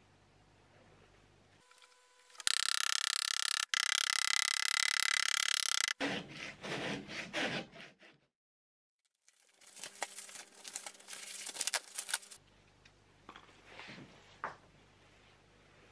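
Blade scraping the cork filler on the bottom of a handmade leather shoe to level it. A loud, steady, rough scrape lasts several seconds, followed by shorter uneven scraping strokes, with a brief dead silence a little past the middle.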